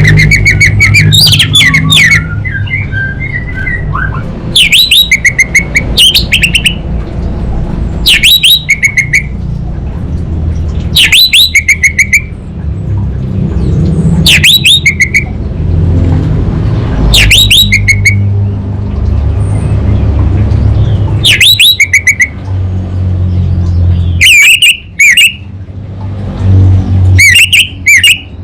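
Orange-headed thrush singing: about nine separate phrases roughly every three seconds, each a quick run of sharp, high, rising-and-falling notes ending in a couple of lower whistled notes. A steady low rumble runs underneath.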